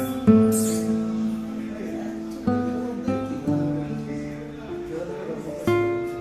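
Background music of an acoustic guitar playing slow chords, each left to ring before the next.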